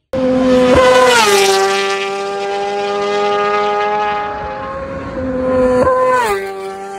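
Kawasaki ZX-6R's inline-four with an Arrow Pro Titan slip-on exhaust, running hard at a steady high note as the bike passes at speed. The pitch drops sharply as it goes by, about a second in and again near the end.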